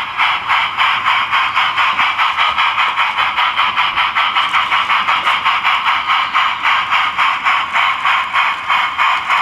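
Sound card in a Gauge 1 model 45xx Prairie tank locomotive playing steam-exhaust chuffs through its small speaker as the engine runs under radio control, an even beat of about four to five chuffs a second.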